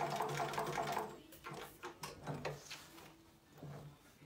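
Juki LU 563 industrial walking-foot leather sewing machine stitching through a hide at a steady rhythm for about a second, then stopping. A few soft knocks and handling sounds follow as the hide is shifted under the foot.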